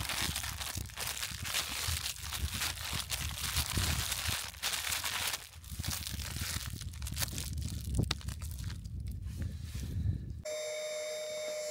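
Wind buffeting the microphone with a low rumble, over the crinkling of a Tarptent Scarp 1 Ultra's TNT sailcloth fly as gloved hands handle it, with one sharp click about eight seconds in. Near the end the sound cuts abruptly to steady held tones.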